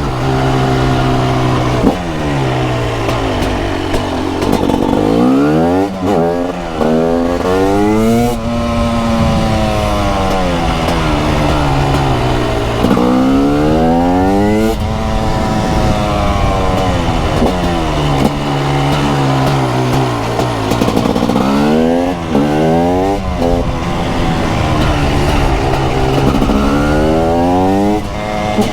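TM SMR 300 supermoto's 300cc single-cylinder two-stroke engine ridden hard: revs climb in quick bursts broken by sudden drops at each upshift, then fall slowly as the bike slows, several times over. Wind noise runs underneath.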